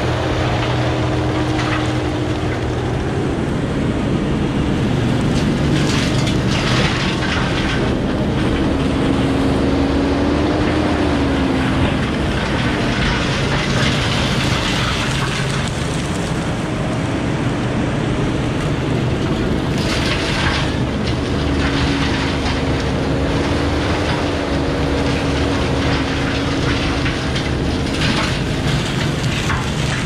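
A Kubota SVL95 compact track loader running a CID 60-inch hydraulic disc mulcher: a steady diesel and hydraulic drone with a humming tone that sags and recovers in pitch as the disc takes load. Short crackling, crunching bursts come as the teeth chew into brush and saplings, around seven seconds in, again around twenty, and near the end.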